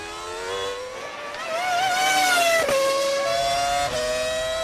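Honda 3.0-litre V10 Formula 1 engine of the BAR Honda, heard onboard, accelerating out of a corner: the note climbs steadily in pitch, then drops sharply at an upshift just past the middle and again at a second upshift about a second later, climbing again after each.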